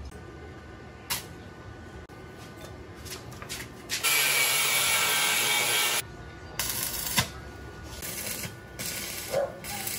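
Stick-welding arc from a small inverter welder sizzling on steel: one steady run of about two seconds in the middle, then several short bursts of arc toward the end.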